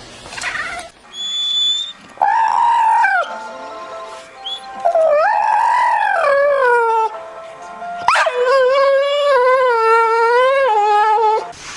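A dog howling: three long drawn-out howls, the last and longest one wavering in pitch.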